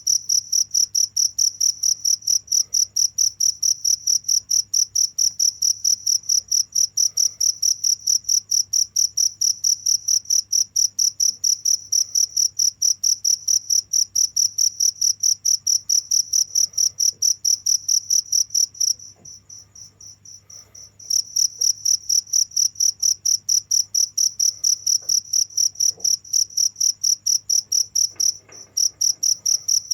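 Cricket chirping: a rapid, even train of pulses on one high, shrill note. About two-thirds through it drops to a faint chirping for a couple of seconds, then resumes, and it breaks off again briefly near the end.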